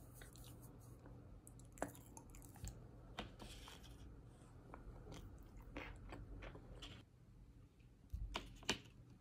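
Close-up chewing of cornstarch chunks: irregular crunches and sharp clicks from the mouth. A couple of louder knocks come near the end as chunks are handled over the plastic tub.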